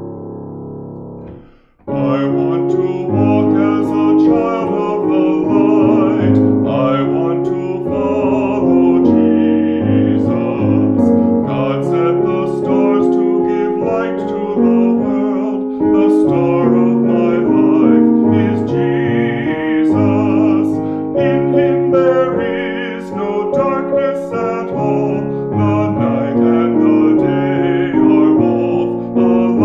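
Hymn sung by a man to his own keyboard accompaniment. A held chord dies away, and after a short gap about two seconds in a new verse begins, with sustained chords under the melody.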